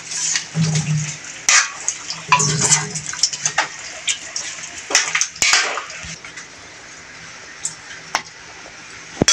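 A ladle stirring a thick chicken and vegetable stew in a metal wok: repeated scrapes and clinks against the pan with wet sloshing, dying down about six seconds in. A single sharp clink near the end.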